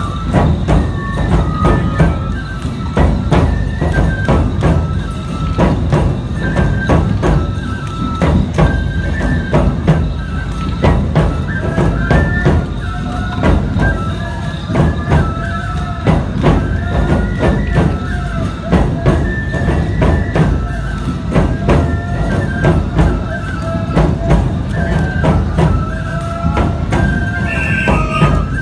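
Nebuta bayashi, the Aomori festival band, playing: big taiko drums beating steadily under dense clanging of tebiragane hand cymbals, with bamboo flutes carrying a repeating, stepping melody.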